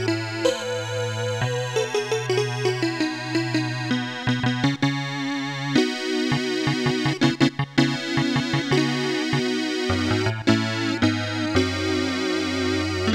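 A Casio SA-10 electronic keyboard being played by hand: a held low bass note under a line of melody and chord notes. A run of rapid, short, choppy notes comes about seven seconds in.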